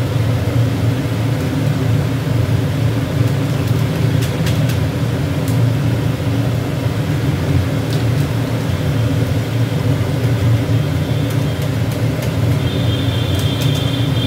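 A steady low mechanical hum, like a motor or fan running, with a few faint clicks over it.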